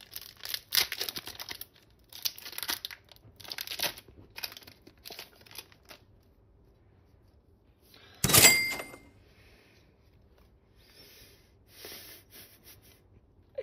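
Foil wrapper of a Pokémon booster pack crinkling and tearing open in quick scratchy strokes, then cards rustling as they are handled. About eight seconds in comes one loud, sharp knock with a brief ring.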